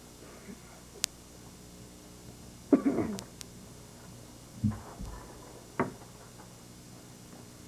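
A person coughing: three short coughs, the loudest about three seconds in and two weaker ones over the next three seconds.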